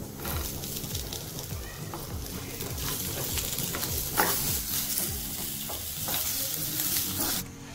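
Halved tomatoes and grated coconut sizzling as they fry in a non-stick kadai with onions and cashews, stirred and scraped with a wooden spatula. There is one sharp knock of the spatula about four seconds in, and the sizzle cuts off suddenly near the end.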